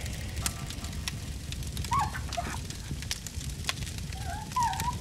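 Campfire crackling with a few sharp pops, and a frightened wolf cub giving short whimpering whines about two seconds in and again near the end.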